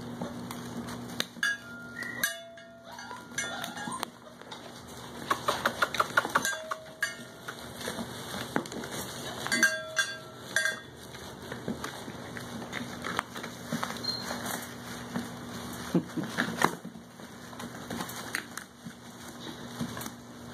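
A litter of 5.5-week-old puppies whining and yelping in short high cries every few seconds, mixed with light clicks and knocks from the wire pen and toys.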